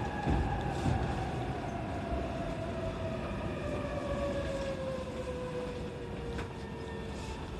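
E531-series electric train's traction motors and inverter whining with a slowly falling pitch as the train slows under braking, over the rumble of the wheels on the rails.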